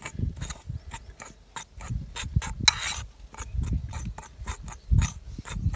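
Metal spoon stirring dry spiced gram-flour mix in a terracotta bowl, scraping and clicking against the clay in quick, irregular strokes. A couple of dull thumps come near the end.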